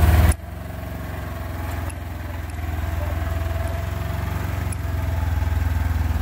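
Polaris Ranger XP 1000 Northstar side-by-side's twin-cylinder engine running at low speed as the machine creeps down a rocky trail, a steady low hum. The sound drops abruptly in level just after the start, then holds steady.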